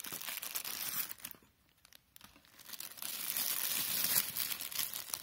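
Clear plastic bag crinkling and rustling as it is handled, pausing for about a second near the middle before starting again.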